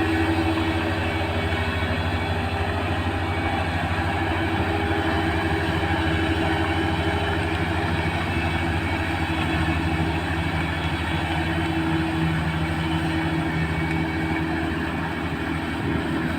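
Combine harvester running steadily while harvesting, a continuous engine drone with a steady low hum.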